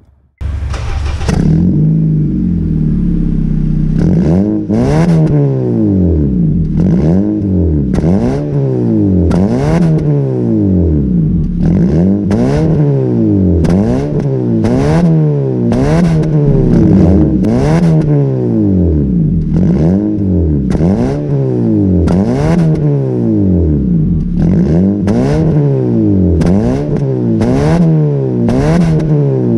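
2007 Honda Civic's 1.8-litre four-cylinder, fitted with an aftermarket axle-back exhaust, catches about half a second in and idles briefly, then is free-revved over and over: quick blips about once a second, each rising and falling, with a few short pauses between runs.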